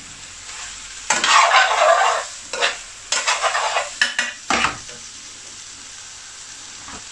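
Spiced chicken, onions and red pepper sizzling in an aluminium pan while a metal spoon stirs and scrapes through them, in a few louder bursts over the first five seconds, then a steady low sizzle.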